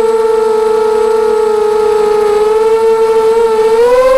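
ZMR250 racing quadcopter's brushless motors and propellers whining steadily, heard close up from the onboard camera; the pitch rises a little near the end as the motors speed up.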